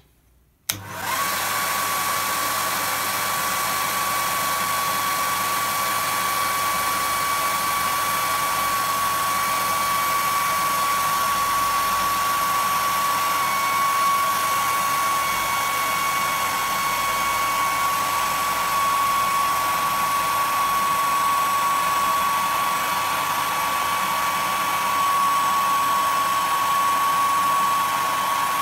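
Hair dryer switched on at full power about a second in, then running steadily: an even rushing blow with a steady whine.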